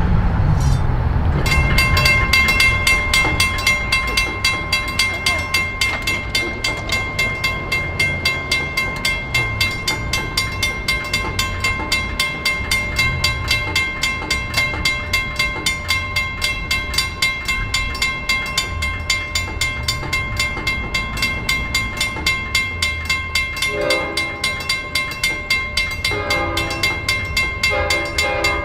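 Railroad crossing warning bell ringing in a fast, even rhythm while the gates are down. Near the end, deeper horn tones sound in short blasts, a train horn.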